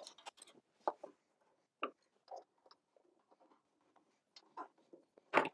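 Scattered light clicks and taps of a screwdriver, a copper ground lug and wires being handled in the heater's sheet-metal wiring compartment, the loudest near the end.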